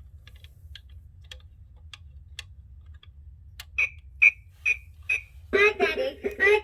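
Doraemon alarm clock: a few irregular light clicks, then four short high beeps about half a second apart, after which its music starts playing.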